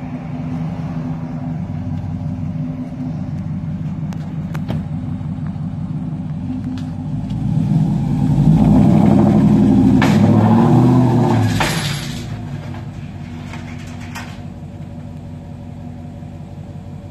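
Ram pickup truck's engine running steadily, then revving harder under load for about four seconds as the truck backs up steep ramps onto a car-hauler's upper deck, before easing off. A few sharp knocks sound along the way, one near the peak of the revving.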